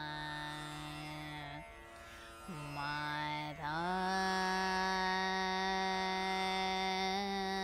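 A woman singing slow held notes of Raag Bageshri in the lower octave over a tanpura drone: a long low note, a short break, then a rising glide into a higher note held from about four seconds in.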